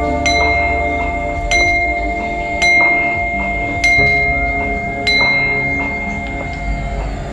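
Buddhist prayer bell struck five times at an even pace, about once every 1.2 seconds, each stroke ringing on into the next, over a low drone of shifting tones, as part of sutra chanting.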